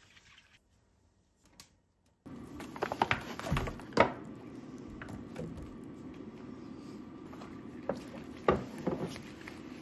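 Groceries being set down on a kitchen countertop, beginning about two seconds in: a plastic clamshell of mushrooms and a glass jar of sauce knock against the counter, twice in quick clusters, over a steady background hum.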